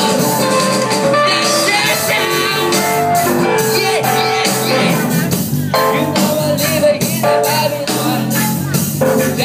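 Live band playing a song with a steady beat, keyboard, guitar and singing.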